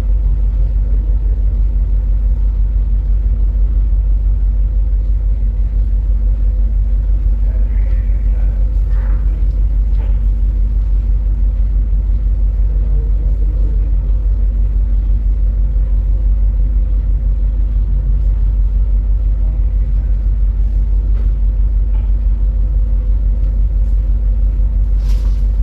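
Steady, deep drone of a ship's machinery with a constant hum over it.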